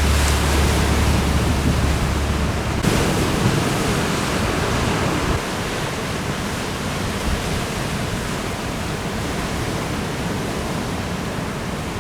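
Trade wind blowing across the camera microphone over breaking ocean surf, a steady rushing noise. A heavy low rumble of wind buffeting the microphone stops abruptly about three seconds in.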